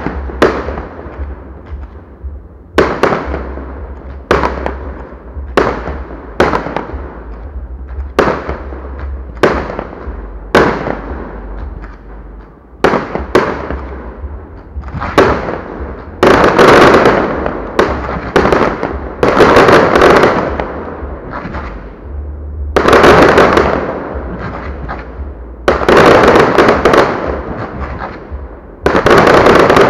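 Fireworks display: aerial shells bursting one after another, each bang trailing off, about one every second or so at first. From about halfway through the bursts come in dense, loud volleys with crackling.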